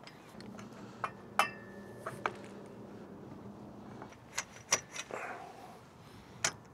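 Light metallic clicks and clinks, about eight spread over several seconds, as aluminium tubes are handled and fitted into metal swivel clamps.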